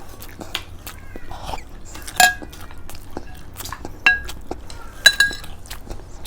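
Cutlery clinking against plates as food is eaten: a string of sharp clinks with short rings, the loudest about two seconds in, four seconds in, and a quick pair around five seconds in.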